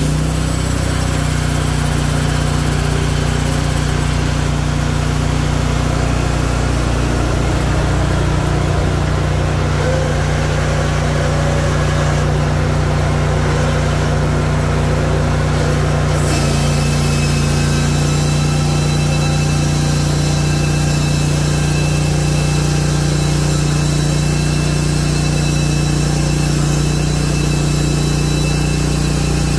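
Engine of a Hudson Oscar 336 portable bandsaw sawmill running steadily, with the band blade sawing a cherry log. About sixteen seconds in, the high hiss above the engine changes while the engine hum carries on.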